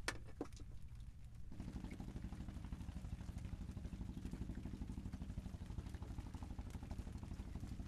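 A small engine running steadily at idle with a rapid regular pulse, coming in suddenly about a second and a half in.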